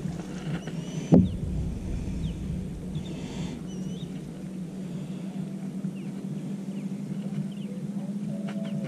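A steady low hum with one sharp knock about a second in, and a few faint, short, high chirps of small birds.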